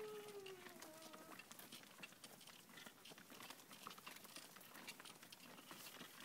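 A voice gives a short falling hum in the first second or so, then only faint scattered taps and scuffs of a child's balance bike and feet on paved sidewalk, near silence overall.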